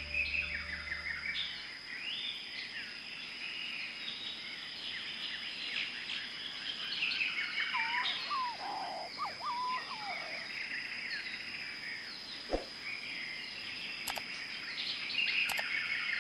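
Many birds chirping and twittering together, with a few louder, lower calls in the middle, over a steady high-pitched whine. A sharp click sounds once, about three-quarters of the way through.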